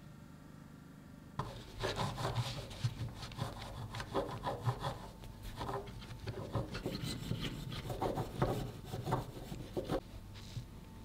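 Serrated bread knife sawing back and forth through a sponge cake, the blade rasping along plastic cake-leveler guides on a wooden cutting board. It starts about a second and a half in and stops about ten seconds in.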